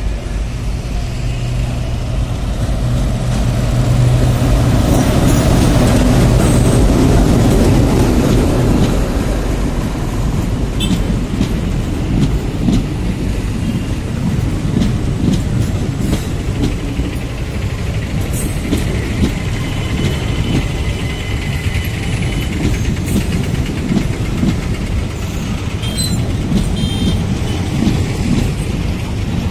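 Indian Railways WDG-3A diesel-electric locomotive with an ALCO engine running under power as it pulls away and passes, loudest a few seconds in. After it, passenger coaches roll past, their wheels knocking rhythmically over the rail joints.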